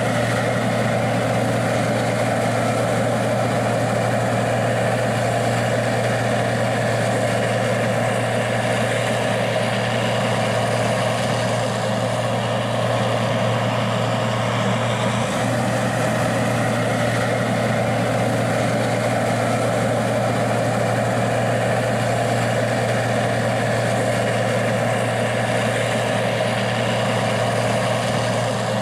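Gleaner R60 combine's diesel engine running steadily at one constant speed, a deep even drone with no change in pitch or level.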